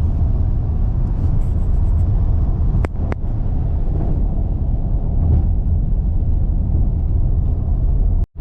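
Steady low road and engine rumble inside a moving car's cabin, with two sharp clicks close together about three seconds in. The sound cuts out for an instant near the end.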